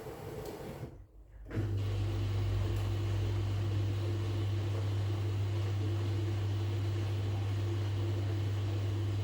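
Washing machine running. About a second in it briefly goes quiet, then a steady low motor hum with a fainter higher tone starts and holds.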